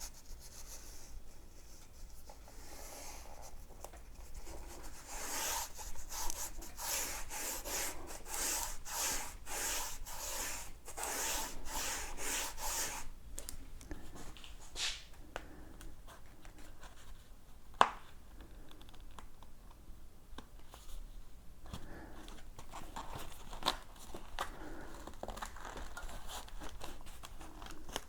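Industrial-strength Velcro hook-and-loop strips and pads being handled: a series of short scratchy rubbing and tearing strokes, about two a second, mostly in the middle stretch. There is one sharp click a little later, then quieter scraping handling.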